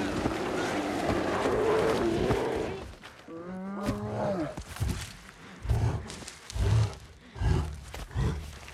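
Grizzly bear growling and roaring as it mauls a man. After a short pitched cry about four seconds in, it settles into a series of deep, low huffs, one every second or less.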